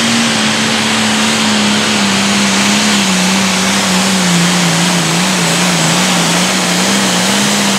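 Turbocharged diesel engine of a limited pro stock pulling tractor at full throttle under heavy load as it drags a weight-transfer sled. The loud, steady engine note sags a little and wavers through the middle, then climbs again near the end.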